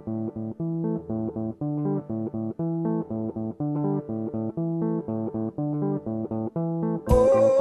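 Background music: a plucked guitar and bass riff repeating in a steady rhythm, with the full band coming in louder near the end.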